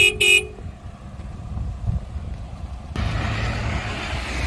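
Car engines idling with a low, steady rumble; about three seconds in, the noise of another vehicle approaching swells in. A brief two-part pitched tone sounds at the very start.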